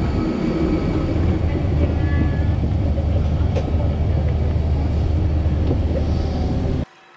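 Steady, loud low rumble of a parked airliner's running machinery, heard while boarding through the jet bridge and the cabin door, with a few faint clicks. It cuts off suddenly near the end.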